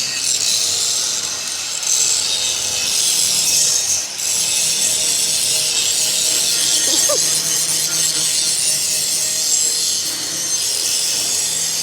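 Angle grinder grinding down weld beads on steel: a steady, loud, high-pitched hiss of the disc on the metal.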